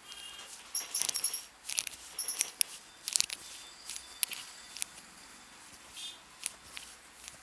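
Head massage by hand: an irregular run of sharp clicks, taps and rubs on the head and neck, busiest in the first four seconds and thinning out after about five, with a few short high chirps among them.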